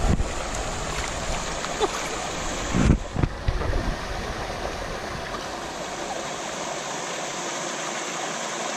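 Steady rush of water from jets spraying and splashing onto a pond's surface. Low thumps on the microphone at the start and about three seconds in.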